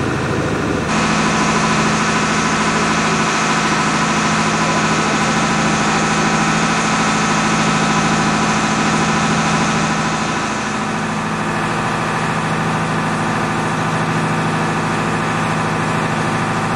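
A boat's inboard engine running at a steady low speed, a continuous hum under way, with its tone shifting slightly about a second in and again a little past the middle.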